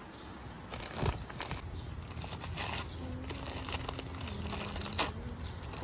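Wrapping paper crinkling and rustling in several short bursts as it is unfolded by hand.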